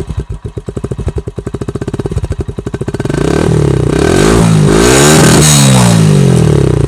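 Hero motorcycle's single-cylinder engine running through a silencer fitted with a plastic Pepsi bottle, a homemade mod meant to make it sound like a KTM. It idles in even pulses, then about three seconds in it is revved up to a loud peak and falls back.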